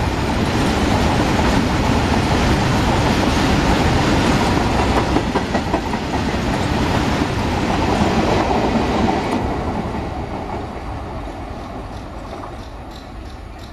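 Covered freight wagons of a long goods train rolling past close by, their steel wheels clattering over the rails. The noise falls away over the last few seconds as the tail of the train moves off.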